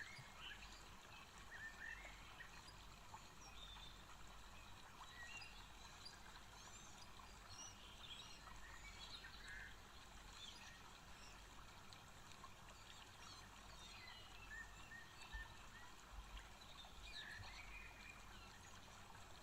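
Near silence: faint room tone with scattered faint bird chirps.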